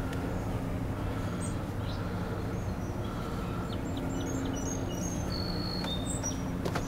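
Outdoor ambience: a steady low hum, with a run of short, high bird chirps in the second half and a couple of sharp clicks near the end.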